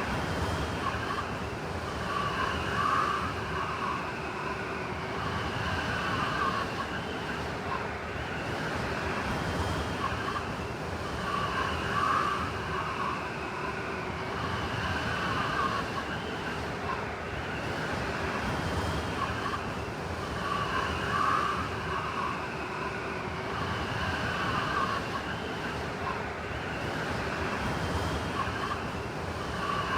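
Blizzard wind howling steadily over a hiss of blowing snow, swelling into a higher whistling gust about every nine seconds.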